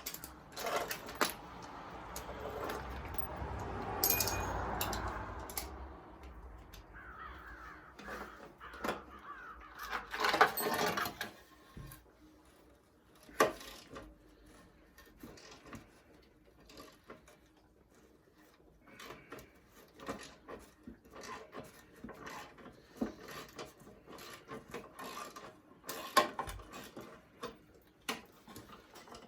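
Scattered clicks, knocks and metal clatter of hand work during a machine teardown, with a longer rustling, scraping noise over the first several seconds and a cluster of louder knocks about ten seconds in.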